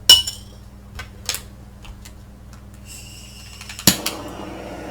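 Metal pan and tools clinking while molten pewter is being cast: a sharp ringing clink, two lighter taps about a second later, then a steady hiss that starts about three seconds in, with a louder knock just before it ends.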